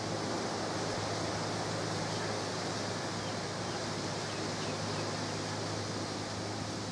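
Steady outdoor background noise: an even hiss with a low steady hum underneath, and no distinct handling sounds.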